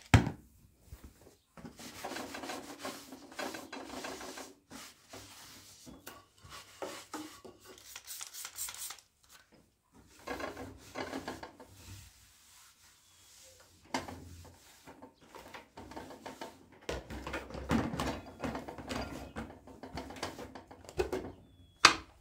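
Repeated rubbing and scraping strokes in three long bouts, with a sharp click at the start and another near the end.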